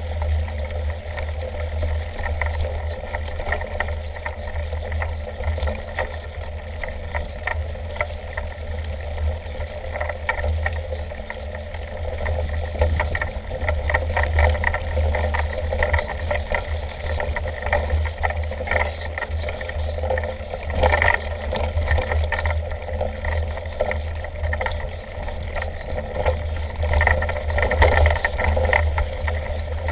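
Mountain bike rolling over a grassy, leaf-covered track: a steady low rumble with frequent rattles and knocks from the bike over the rough ground.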